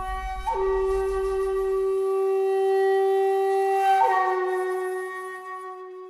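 Background music: a wind instrument holding long sustained notes, shifting pitch about half a second in and again near four seconds, then fading out.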